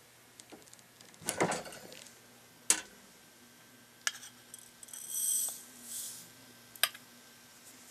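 A few sharp metallic clicks and clinks, the loudest in the first three seconds, then a short rattling hiss about five seconds in as extruded rifle powder pours from a .30-06 brass case into the brass pan of a balance-beam powder scale, with light taps of the case on the pan.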